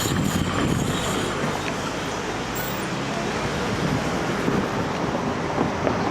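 Steady rumble and hiss of passing vehicles, a little louder in the first second.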